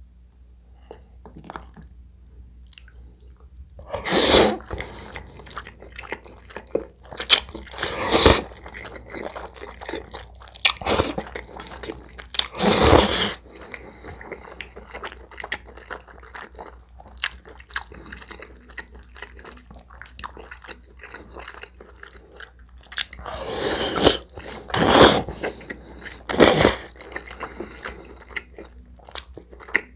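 Close-miked eating of spicy tomato soup spaghetti: wet chewing throughout, broken by about six loud slurps of noodles.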